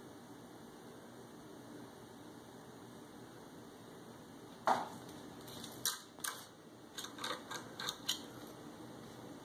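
Quiet room tone, then about halfway one sharp knock followed by a quick, irregular run of light clicks and taps on a laminate floor: a cat batting at a toy spider, its paws and claws and the toy clicking on the hard floor.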